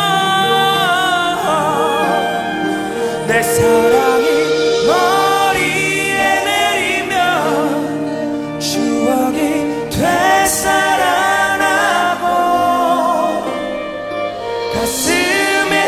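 Male singer's live pop-ballad vocal over band accompaniment: long held notes with wide vibrato and melismatic runs.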